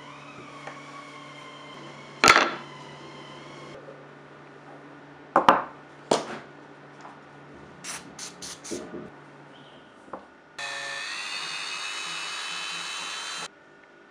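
Several sharp knocks of things handled on a workbench, then an aerosol can sprayed in four quick short bursts onto a sharpening stone. About ten seconds in, a Dremel 3000 rotary tool spins up and runs steadily for about three seconds, then cuts off.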